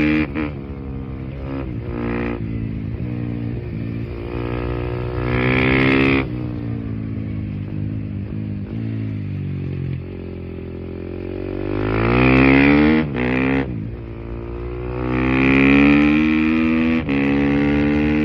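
KTM EXC-F 350 single-cylinder four-stroke motorcycle engine with an Akrapovic exhaust, ridden hard at full throttle: the revs climb and drop sharply at each gear change. Midway the revs sag as it slows, then climb hard again twice.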